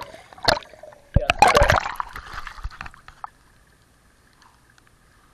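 Water splashing and gurgling against a GoPro's waterproof housing as the camera comes up out of a swimming pool. A sharp splash comes about half a second in, then a louder burst of splashing from about one to two seconds, dying away by three seconds.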